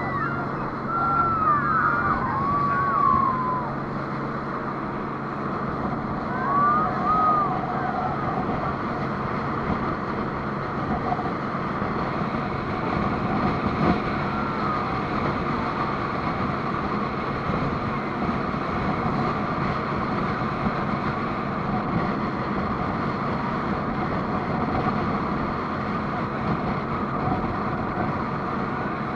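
Speedboat engine running steadily at speed under a heavy rush of wind and water. A few brief high cries come in the first several seconds.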